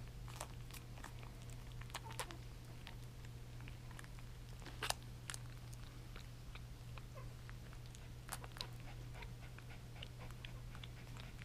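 Havanese puppies about 20 days old nursing from their mother: irregular wet suckling and smacking clicks, with one louder smack about five seconds in. A steady low hum runs underneath.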